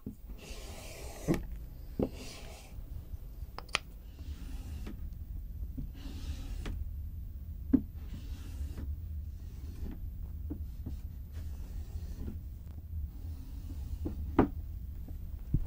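A wood graining tool scraping and rubbing as it is dragged through wet acrylic paint on a board. A few sharp taps and knocks sound, the clearest about eight seconds in and near the end, over a steady low hum.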